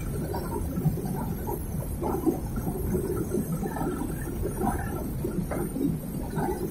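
Metre-gauge passenger train running uphill, heard from beside the coach: a steady, dense rumble and rattle of wheels and coach.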